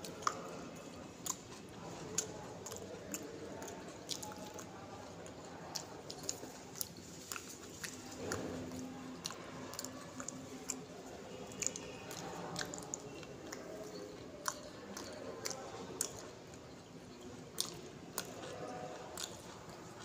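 A person chewing boiled vegetables and chicken close to the microphone: wet mouth noises with many irregular sharp clicks and smacks.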